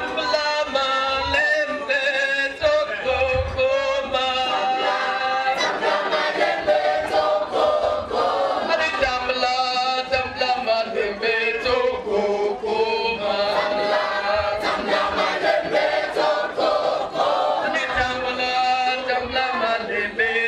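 A church choir of women's and men's voices singing together, with frequent sharp hand claps.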